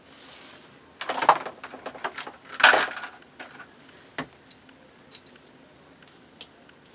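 Small metal hardware jingling and clinking as it is handled, in two short rattling bursts about a second in and just under three seconds in, followed by a few light ticks.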